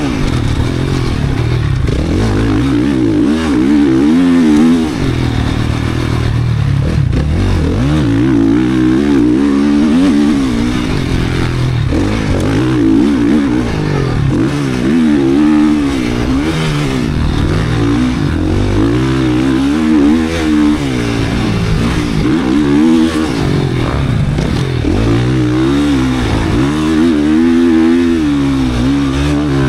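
GasGas 450 motocross bike's single-cylinder four-stroke engine being ridden hard: revving up and dropping back over and over, every two to three seconds, as the throttle is opened and shut.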